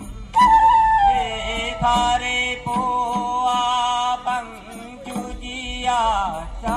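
A Karbi folk song sung live through a PA, with a drum keeping the beat underneath.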